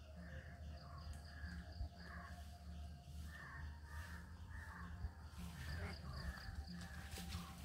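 A string of short, harsh animal calls, about two a second, over a faint steady high-pitched tone and a low hum.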